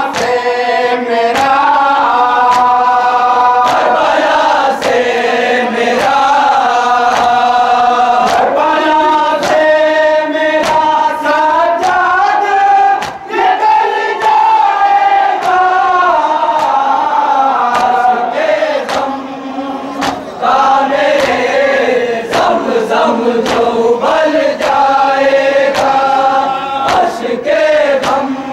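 Men chanting a noha, a Shia lament, together in chorus, kept in time by matam: sharp chest-beating slaps a little more than once a second. The chant breaks briefly between lines about a third and two thirds of the way through.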